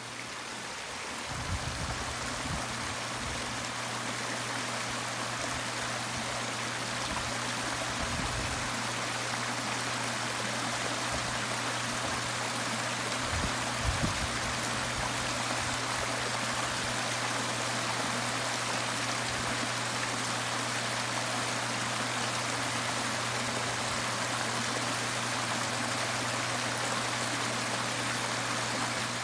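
Water from a backyard pondless waterfall spilling and splashing steadily over rocks, with a steady low hum underneath.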